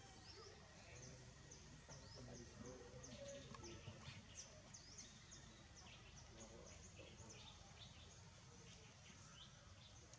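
Faint background chirping of small birds, many short quick chirps, over a low steady rumble of outdoor noise.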